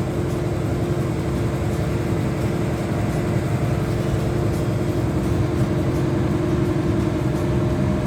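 A large vehicle engine running steadily, with a constant low drone and a held hum.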